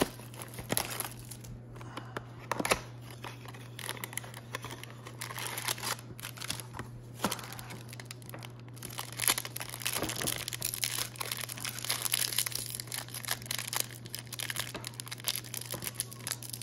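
Foil wrapper of a Topps Triple Threads trading-card pack crinkling and crackling as it is handled and torn open, the crinkling getting denser and more continuous in the second half.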